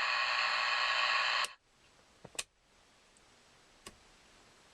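Steady static hiss from a CB radio speaker that cuts off suddenly with a click about one and a half seconds in, followed by a couple of faint clicks.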